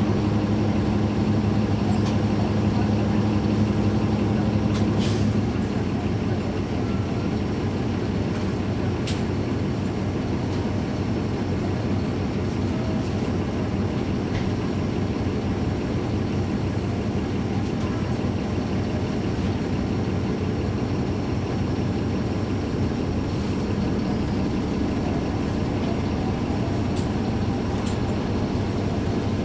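Caterpillar C13 ACERT diesel engine of a NABI 416.15 transit bus running with its engine cooling fans on, heard from aboard the bus along with road noise. The steady engine hum is strongest for the first five seconds or so, then sinks into the road and cabin noise, with a few sharp clicks.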